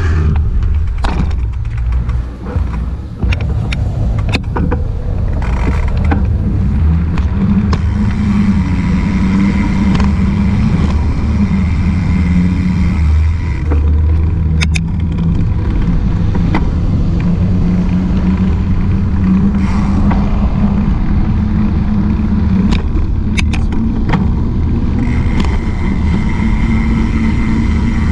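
Steady low rumble of wind and rolling noise picked up by a camera riding on a mountain bike, with traffic on the road alongside. A few sharp knocks come through as the bike goes over bumps.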